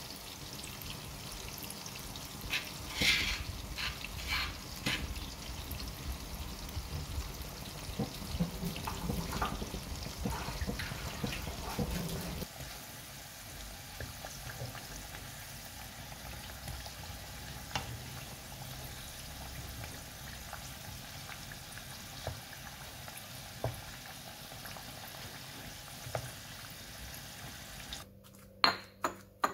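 A pot of vegetables at a rolling boil, bubbling and popping. A little before halfway it changes to a steady sizzle of potato chunks frying in oil in a wok, with an occasional click from the spatula. Near the end come sharp repeated knocks of a pestle pounding in a stone mortar.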